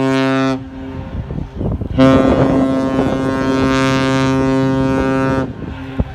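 Cruise ship horn sounding long, steady, deep blasts as a farewell salute. The first blast cuts off about half a second in, and a second one starts about two seconds in and holds for about three and a half seconds. Wind noise on the microphone fills the gaps.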